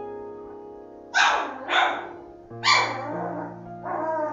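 A dog barking four times, loud and short, over background music with sustained notes.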